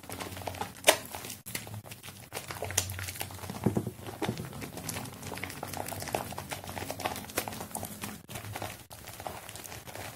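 A soap-lathered sponge squeezed and kneaded by hand: irregular wet squelches and crackling foam, with a few sharper squishes.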